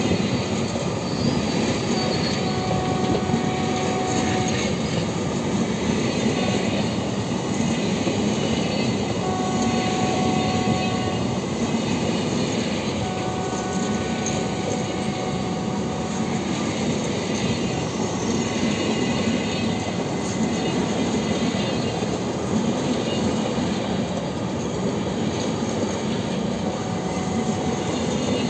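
Empty BLC container flat wagons of a long freight train rolling past close by: a steady rumble of steel wheels on rail with a faint clickety-clack. High squealing tones from the wheels come and go in spells of a few seconds.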